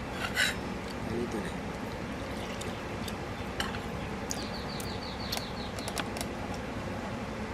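Steady background hiss with a few light clicks, and a brief high, rapidly repeating chirp about four and a half seconds in.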